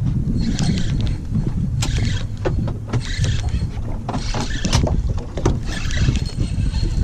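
Wind rumbling on the microphone of a small boat, with water sloshing and slapping against the hull in irregular bursts about once a second.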